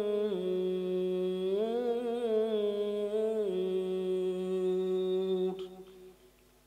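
A man reciting the Quran in melodic tajwid style, holding one long drawn-out note on the last word of a verse. The pitch rises and falls slowly, then fades out about five and a half seconds in.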